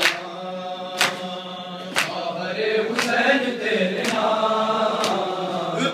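Men's voices chanting an Urdu noha (mourning lament) together, with hand-on-chest slaps of matam landing about once a second in time with the chant.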